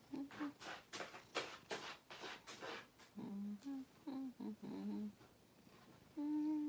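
A woman's voice humming short wordless tones, with a run of several short breathy sounds about half a second in.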